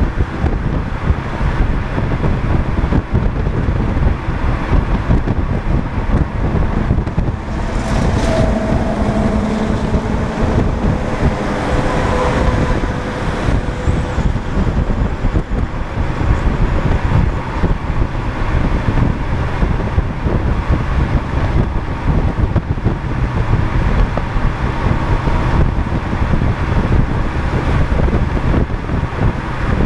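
Steady wind rush and road noise of a car driving at highway speed, heavy with wind on the microphone. Between about eight and thirteen seconds in, faint steady tones rise over the noise as oncoming traffic, including a car-carrier truck, passes.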